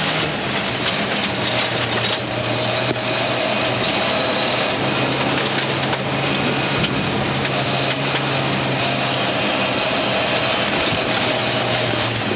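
Inside the cabin of a 1988 VW GTI rally car driving on gravel: the engine runs at steady revs under a constant rush of tyre and gravel noise, with scattered clicks of stones striking the car.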